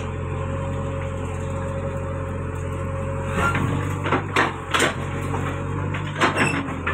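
JCB backhoe's diesel engine running steadily as its bucket digs out a neem tree root, with a series of sharp knocks and cracks from the bucket striking the root and broken concrete between about three and a half and six and a half seconds in.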